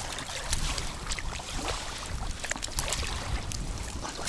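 Wind buffeting the microphone over shallow water lapping and sloshing, with small splashes as a caught vobla is put into a wire keepnet in the water; a louder splash at the very end.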